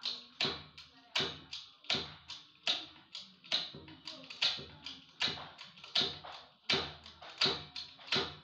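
Hydraulic bottle jack being pumped by hand, giving a steady run of sharp clicks about two to three a second, as it presses the coil into a submersible motor's casing.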